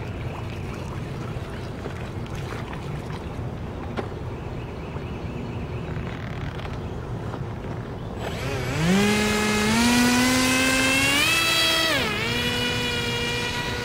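Brushless-motor Aquacraft Alligator Tours RC airboat: after about eight seconds of low background noise, the motor and air propeller start up with a whine that climbs in pitch in steps as the boat speeds away. The pitch dips briefly near the end, then holds steady.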